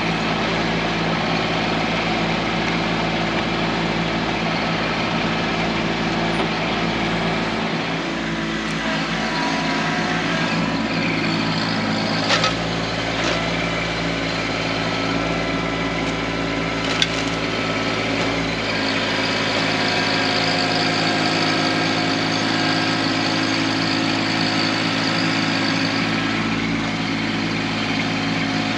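Kubota B2650 compact tractor's three-cylinder diesel engine running steadily while the backhoe works, its note changing about eight seconds in and again about eighteen seconds in. A few short sharp knocks come around twelve and seventeen seconds in.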